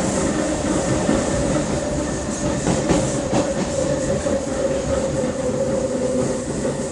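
CPTM electric train unit 4417 running with a steady roaring hum held on one pitch, with a few rail clicks about halfway through.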